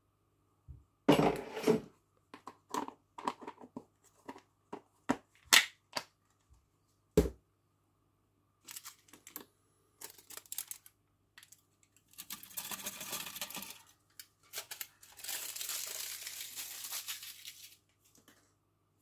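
A clear plastic bag of powder and aluminium foil crinkling and rustling in the hands. There are several sharp knocks and taps in the first seven seconds, then two longer stretches of rustling about twelve and fifteen seconds in.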